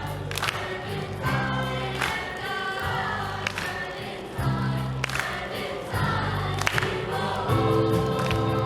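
Music with singing voices over sustained chords and a held bass line.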